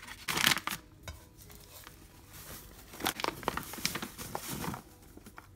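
Paper flour bag crinkling and rustling as flour is poured from it into a large bowl. There is a loud rustle about half a second in, then quieter pouring with a run of soft crackles and taps between about three and five seconds in.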